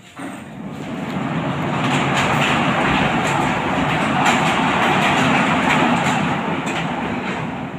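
Steel sliding-folding garage door being pulled shut, its panels rolling along the track with a steady rolling noise and light clicks. It starts suddenly, grows louder over the first couple of seconds and eases off near the end.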